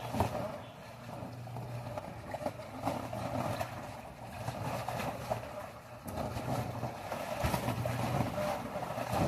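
Rushing, churning water with a steady low hum under it, like a pump driving a strong flow.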